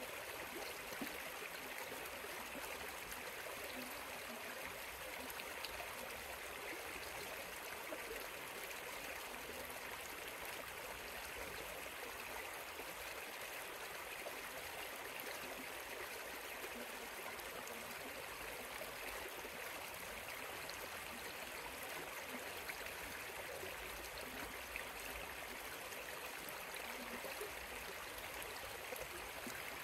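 A river flowing, a steady, unbroken rush of water.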